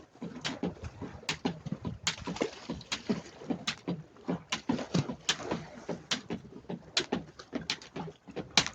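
Jump rope slapping the floor at an even pace, about once every 0.8 seconds, with softer low thuds of landings in between.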